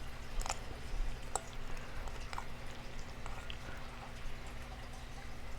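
Faint, wet clicks of chewing, spaced about a second apart over a low steady hum from the close microphone.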